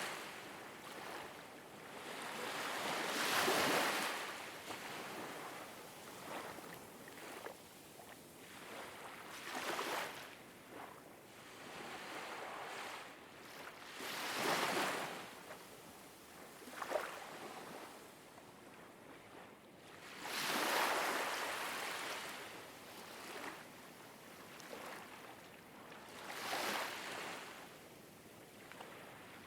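Ocean waves washing in, soft noisy swells that rise and fall at irregular gaps of a few seconds.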